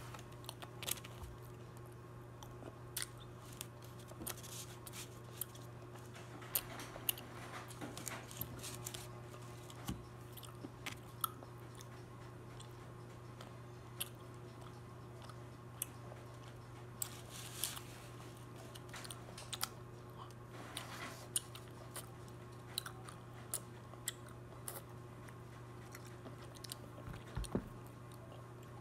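A child chewing gummy fruit snacks close to the microphone: irregular wet mouth clicks and smacks all through. Under them runs a steady low background hum.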